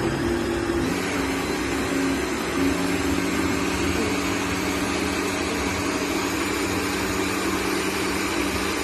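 Countertop blender motor running steadily at high speed, puréeing tomatoes with peppers and cucumber into a liquid. Its tone shifts slightly about a second in, then holds steady.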